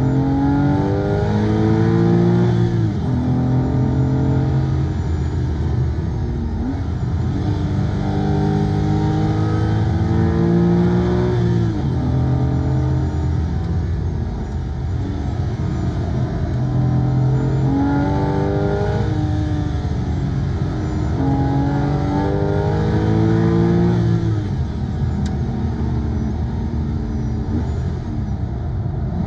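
Porsche 911 (997) Carrera 2S's flat-six engine driven hard, revs climbing under acceleration and dropping back sharply about five times.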